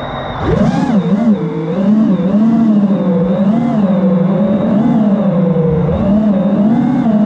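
FPV quadcopter's brushless motors spinning up for takeoff about half a second in, then whining in flight with the pitch wavering up and down as the throttle changes.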